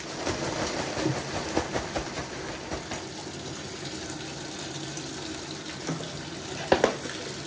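Coin-operated washing machine filling with water, a steady rush of water that starts suddenly. There are scattered light clicks in the first three seconds and two sharp knocks in quick succession near the end.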